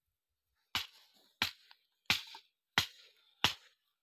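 A hand tool striking the ground in a steady rhythm: five sharp cracks, about one every two-thirds of a second.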